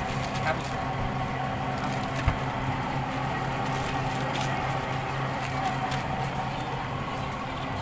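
Steady low mechanical hum with crinkling of a thin plastic bag as grilled sausages and vegetables are packed into it, and a single dull thump about two seconds in.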